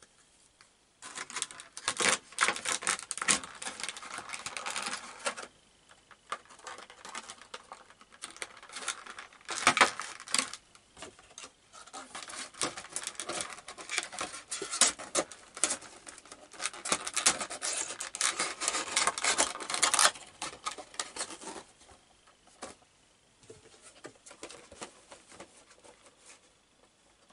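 Crinkling and crackling of a Funko Pop's clear plastic packaging insert and cardboard window box being handled. The crackling is dense for most of the first twenty seconds, then gives way to lighter, scattered rustles.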